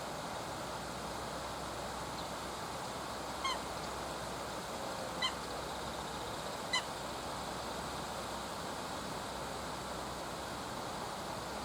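Eurasian coot giving three short, honking calls about one and a half seconds apart, over a steady hiss of river and background noise.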